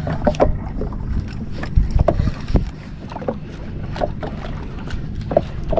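Sounds aboard a small fishing boat at sea: a steady low rumble of wind and water, with irregular knocks and taps scattered throughout.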